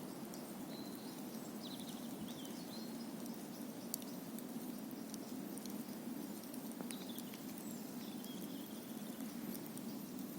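Wood campfire crackling, with frequent sharp pops and snaps scattered over a steady low rushing noise. A few short, high chirps come through about a second in and again around seven seconds in.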